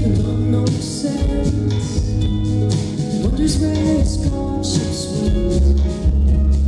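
Live band music heard from the crowd: drums with cymbals, bass and guitar, with a singer's sustained wordless line on top.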